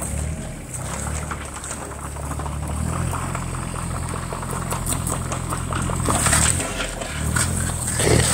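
Wacker Neuson 1404 mini excavator's diesel engine running steadily, its note shifting about three seconds in and dipping briefly near the end, with a couple of short louder noisy bursts.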